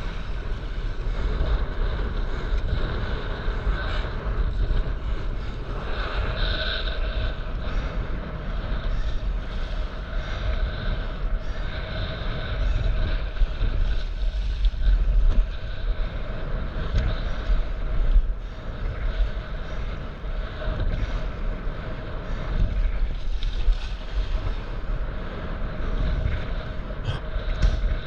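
Wind buffeting an action camera's microphone with a steady low rumble, over sea water lapping and splashing around a stand-up paddleboard.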